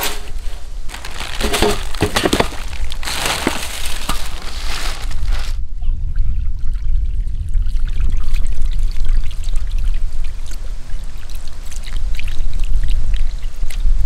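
Water poured in a thin stream from a copper jug, trickling and splashing over rainbow trout rinsed by hand in a stainless steel basin. Louder noise fills the first five or so seconds, then cuts off to a softer trickle.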